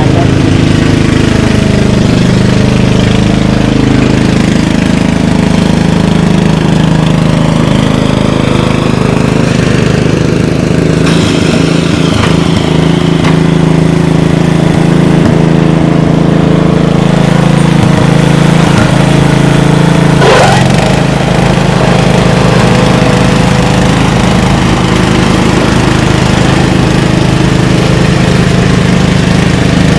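Petrol lawn mower engine running steadily while mowing grass. Its note shifts slightly now and then as the load on the engine changes.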